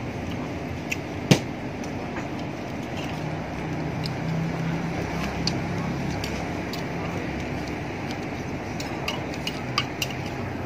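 Eating-place ambience: scattered clinks of spoons and chopsticks against bowls and dishes, one sharp clink about a second in, over a low steady rumble that grows louder through the middle.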